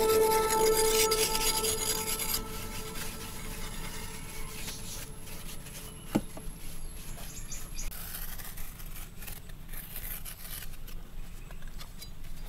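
A metal scraper rasping over hardened clay in repeated strokes, with one sharp click about six seconds in. The tail of background music fades out over the first couple of seconds.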